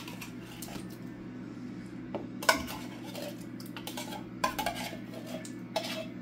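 Metal utensil scraping and clinking inside an opened tin can as canned pineapple is scooped out into a stainless steel mixing bowl, with scattered sharp knocks, the loudest about two and a half seconds in.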